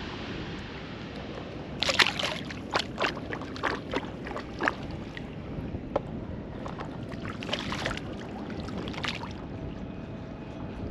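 Shallow water splashing and sloshing in two flurries of short, sharp splashes, over a steady hiss of wind and moving water.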